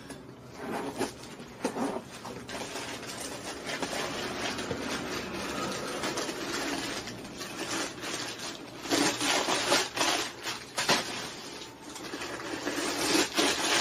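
A Loungefly mini backpack being handled and unzipped: a zipper running and the packing material inside rustling, with sharper clicks and crinkles about nine seconds in and again near the end.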